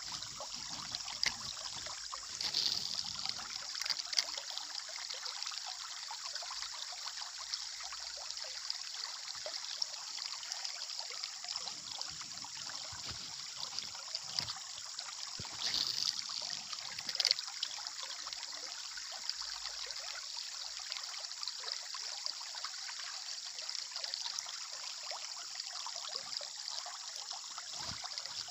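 Water trickling and flowing steadily, with a few short clicks and knocks now and then.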